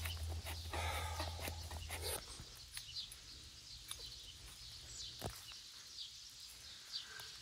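Dry birch bark being shaved and crumpled by hand for tinder, with a low rumble under it for the first two seconds; then quiet with scattered faint clicks and ticks and one sharper click about five seconds in.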